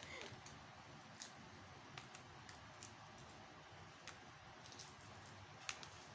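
Faint chewing and mouth sounds of someone eating fried isaw, with a few soft clicks spread through it and one slightly louder click near the end.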